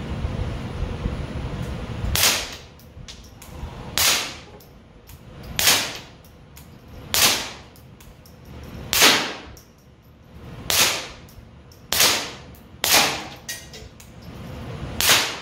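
Suppressed .22 LR semi-automatic rifle, a 10/22 pattern wearing a SilencerCo Sparrow, firing 38-grain subsonic hollow points. There are nine quiet, sharp shots, each with a short tail. They start about two seconds in and come one to two seconds apart, quicker toward the end.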